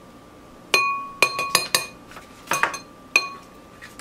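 Metal spoon knocking against the rim of a glass mixing bowl to shake off scoops of cream cheese: a run of sharp clinks beginning under a second in, each ringing briefly.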